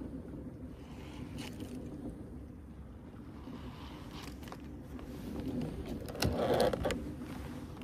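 Plastic sit-on fishing kayak moving through calm water, with a steady low rush of water along the hull. About six seconds in, a paddle knocks and scrapes against the hull several times in quick succession; this is the loudest part.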